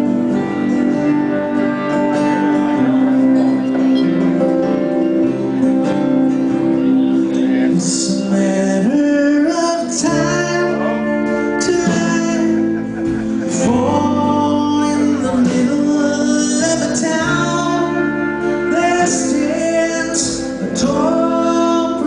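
Live band playing a folk-rock song on acoustic and electric guitars; a voice comes in singing about eight seconds in.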